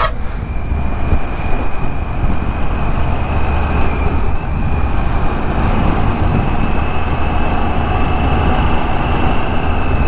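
Triumph Tiger 800's inline-triple engine running at a steady cruise, heavily masked by a constant low rush of wind on the microphone.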